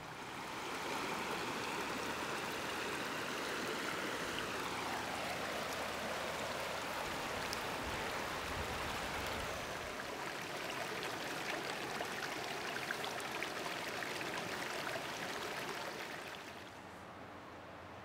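Shallow mountain stream running and splashing between boulders, a steady rush of water that swells up in the first second and falls away shortly before the end.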